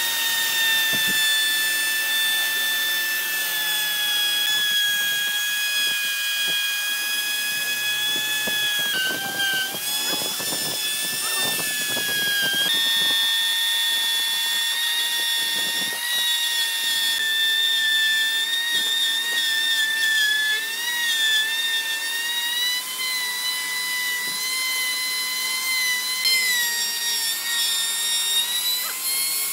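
Electric power tool running on wood: a steady high-pitched motor whine whose pitch sags and wavers as it comes under load, with rasping from the cutting around the middle.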